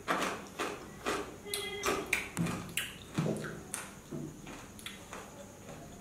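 A man breathing hard in short, sharp puffs through pursed lips, about two a second, blowing and sucking air against the burn of the very hot chili chip in his mouth.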